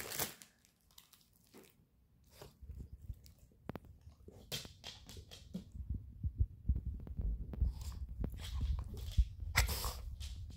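A dog pawing at a crinkly foil wrapper on a sofa: scattered clicks and crinkles, with two louder rustles about four and a half and nine and a half seconds in, over low thumps and rumble.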